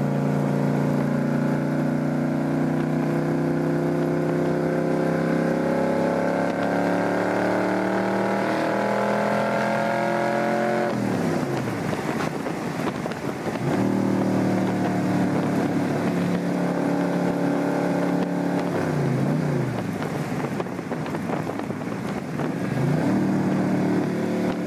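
Aluminium Cobra roadster's V8 engine under way on the freeway, heard from the open cockpit over a rush of wind and road noise. Its note climbs steadily under acceleration for about ten seconds, breaks off suddenly, then dips and climbs back in pitch several times.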